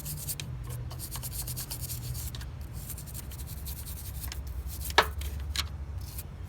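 Toothbrush scrubbing grime off engine-bay parts in quick, repeated brushing strokes, with one sharp knock about five seconds in.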